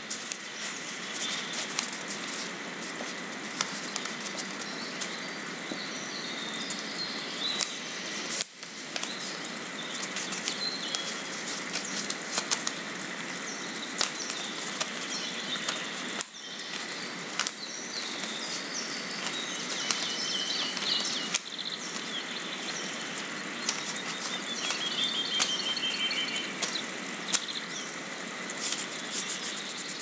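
Outdoor field ambience: a steady hiss full of small crackles and clicks, with small birds chirping now and then, more often in the second half. The sound drops out briefly three times.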